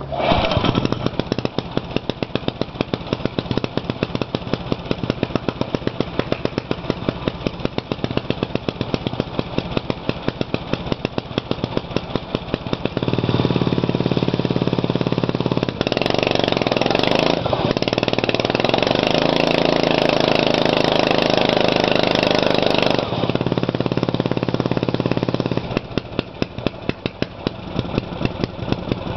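Single-cylinder four-stroke 6.5 HP PowerFist go-kart engine, fitted with a muffler, cold-started by pull cord and catching at once. It idles with an even firing beat, then speeds up and runs louder for about thirteen seconds before dropping back to idle near the end.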